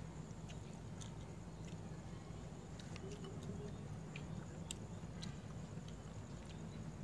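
Someone eating: faint chewing and scattered light clicks of chopsticks against a small bowl, over a steady low hum.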